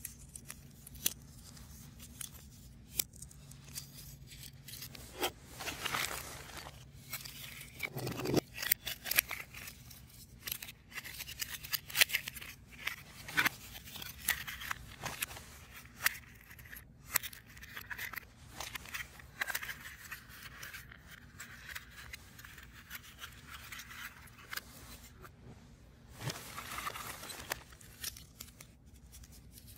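Pieces of a 3D puzzle being handled and fitted together: irregular small clicks, scrapes and tearing sounds, busiest around a third of the way in.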